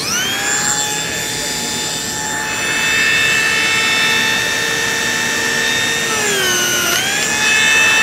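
Cordless Lamello Zeta P2 joiner's motor coming up to speed, then a steady high whine. About six seconds in the pitch sags briefly and recovers as the profiled cutter takes load in the wood.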